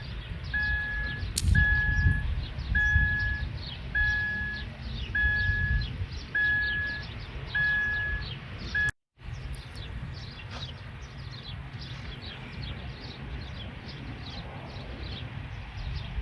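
Wind buffeting the microphone with birds chirping, and a steady electronic beep repeating about once a second for the first nine seconds. The beeping stops at a sudden cut to silence, after which the wind and chirping go on.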